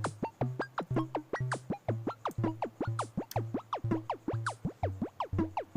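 Electronic background music: a steady low bass pulse about twice a second under quick falling synth blips.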